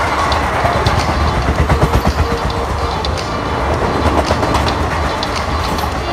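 A train running on the track, its wheels clattering over the rail joints, with a run of quick clacks about two seconds in.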